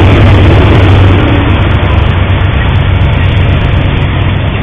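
Freight train passing close by: a loud, steady rumble of wheels on rail, with a low drone that fades about a second in, and the whole sound slowly growing quieter.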